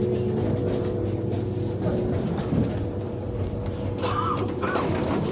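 Running noise inside a moving regional passenger train carriage: a steady hum of several fixed tones over a rumble, fading into a rougher rumble, with a brief louder burst of noise about four seconds in.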